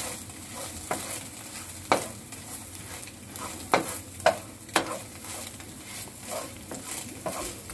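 Scrambled eggs sizzling in a nonstick frying pan while a wooden spatula stirs and scrapes them, with irregular sharp knocks of the spatula against the pan.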